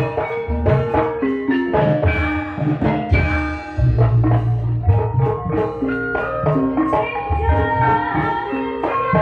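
Live gamelan ensemble accompanying an ebeg dance: struck metal keyed instruments ring out a melody of held notes over hand-drum strokes, with a run of heavier low drum beats about four seconds in.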